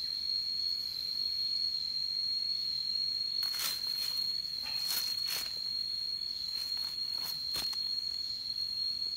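Steady, high-pitched insect drone, one unbroken tone. From about three and a half seconds in, a few short rustles and scrapes as a knife cuts into dry leaf litter.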